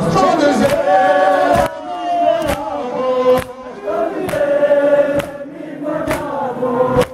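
A group of men chanting a mourning lament (nauha) together, with sharp chest-beating strokes (matam) in unison a little faster than once a second.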